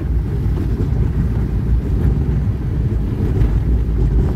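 Steady low rumble of a moving vehicle, road and engine noise with wind buffeting the microphone.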